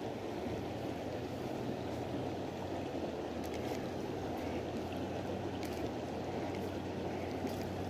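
Steady rush of flowing stream water, with a few faint clicks.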